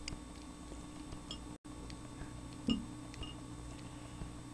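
Quiet room tone with a steady electrical hum, a few faint scattered clicks and one short soft knock about two and a half seconds in. The sound cuts out completely for an instant about one and a half seconds in.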